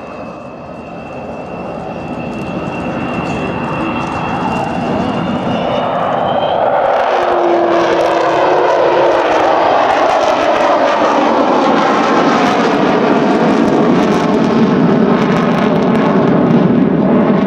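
Avro Vulcan's four Rolls-Royce Bristol Olympus 202 turbojets, a loud jet noise that grows over the first ten seconds as the bomber closes in and then holds steady. A high whine rises slightly through the first six seconds.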